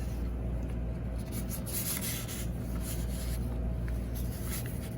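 Faint rubbing and rustling as the opened natural gas regulator and its diaphragm are handled, over a steady low hum.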